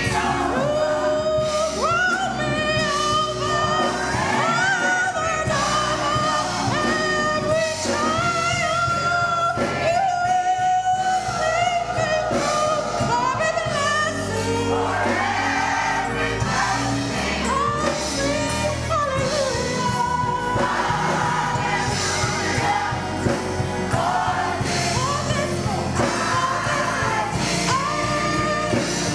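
Gospel choir singing with instrumental accompaniment, sustained melodic lines over a steady bass.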